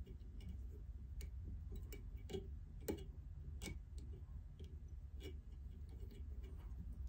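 Faint, irregular small clicks and ticks of hand work at a fly-tying vise as a weed guard is tied onto the fly, a few loose clicks every second or so over a low steady hum.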